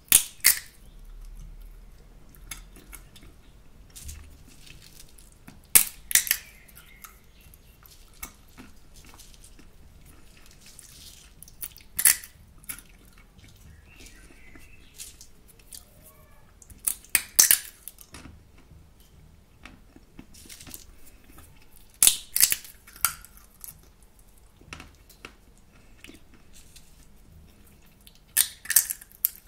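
Roasted salted sunflower seeds in the shell being cracked open between the teeth: a cluster of one to three sharp cracks about every five to six seconds, six times, with faint small clicks in between.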